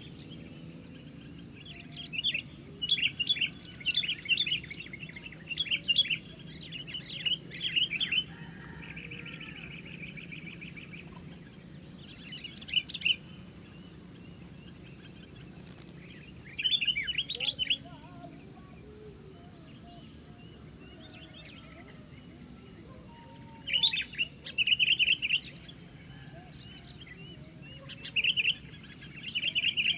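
Sooty-headed bulbul singing loudly: short phrases of quick notes, several in a row early on and then one burst every few seconds. A steady high-pitched insect drone runs underneath.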